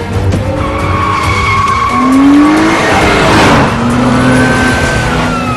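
A car driven hard: its engine revving with tyres squealing and skidding, a rising rev about two seconds in and a long falling squeal near the end.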